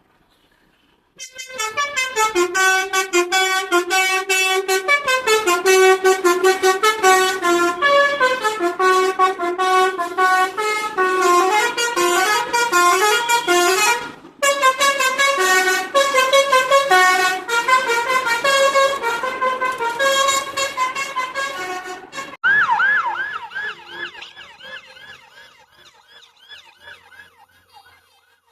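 Indonesian bus's multi-tone musical horn (klakson telolet) playing a tune of quick stepped notes, with a short break about halfway. Near the end it switches to a fast warbling, siren-like wail that fades away.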